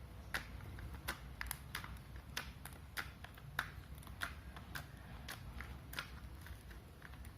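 Butter slime, made from clear glue and foam clay, being squeezed and stretched by hand. It gives a run of faint, irregular sticky clicks and pops, about two a second.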